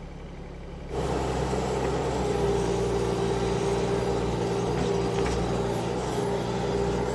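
An engine running steadily, cutting in abruptly about a second in and holding an even pitch.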